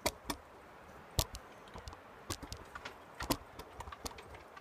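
Handling noise: scattered light clicks and taps at uneven intervals from tools and the hand-held camera being moved about, with two sharper knocks about a second in and a little past three seconds.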